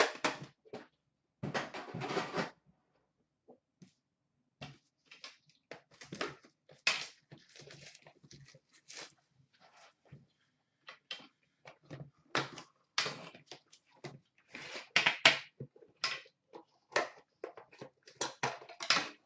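A trading-card box and its metal tin being handled and set down on a glass counter: a run of irregular rustles, scrapes and small knocks of cardboard and tin.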